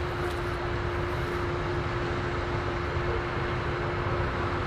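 Combine harvester running steadily while harvesting corn: an even machine noise with one held tone through it.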